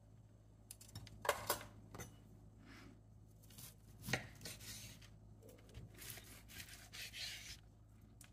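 Metal tongs and a steak knife and fork clicking against a wooden board, then the knife sawing through a cooked chuck eye steak in a few scraping strokes. Two sharp clicks come about a second in and another about four seconds in; the sawing strokes follow.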